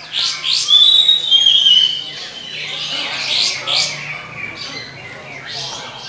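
Oriental magpie-robin (kacer) singing: loud whistled notes with quick sweeping chirps in the first two seconds, then shorter phrases after a pause.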